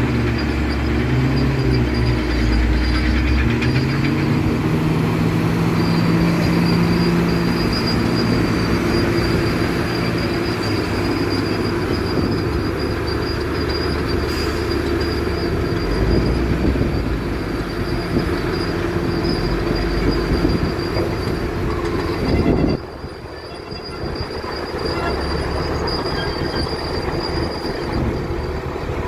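Heavy diesel farm machinery running under load, with engine pitch shifting in the first few seconds over a steady high whine. About three-quarters through, the level drops suddenly, then the machinery sound carries on.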